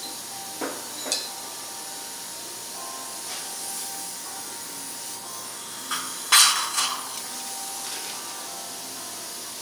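Sharp metallic clicks of surgical instruments (needle holder and scissors) being worked during suturing: two light ones within the first second or so, then a louder cluster about six to seven seconds in. Under them is a steady hiss with faint music.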